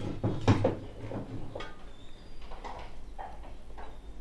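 Clunks and clicks of a CRT TV chassis circuit board being handled and turned over on a workbench, with the loudest knock about half a second in and lighter taps and rattles after it.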